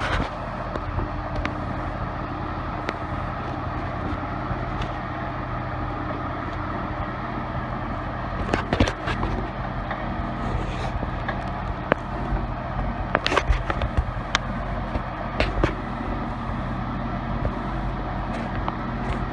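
Case 580B backhoe's four-cylinder diesel engine running steadily at low speed, with scattered knocks and rattles from the machine, a few about eight to nine seconds in and more between thirteen and sixteen seconds.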